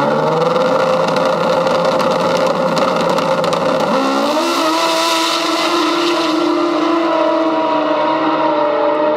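Outlaw-class drag-racing snowmobile engine revving at the starting line, its note rising and then holding steady. About four seconds in the pitch changes and a burst of hiss comes in as the sled launches hard down the strip.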